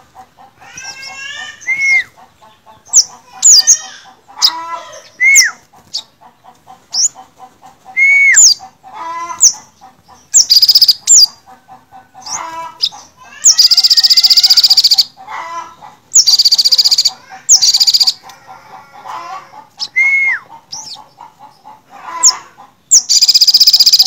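Olive-backed sunbirds singing: a string of short sharp chirps and slurred whistles, broken by loud rapid buzzing trills about halfway through, again a few seconds later, and near the end.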